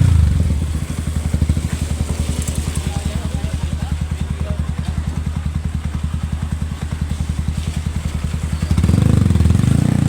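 Yamaha R15 single-cylinder motorcycle engine idling with a steady, even, rapid beat, growing louder near the end.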